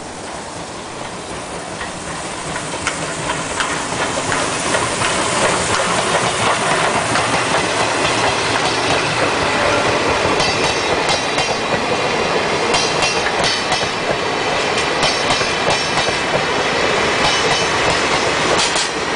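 A departing steam-hauled train of old passenger coaches rolling past, its wheels clattering over the rail joints with a dry metallic ringing and squeals. The sound builds over the first few seconds, and the clacking grows denser about halfway through as the coaches go by. The diesel locomotive at the rear passes near the end.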